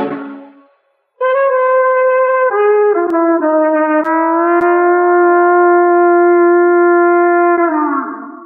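The backing band's chord fades out; then, after a short pause, an unaccompanied trumpet plays the theme's closing cadenza: a short descending run, ending on a long held final note that dips slightly and fades away.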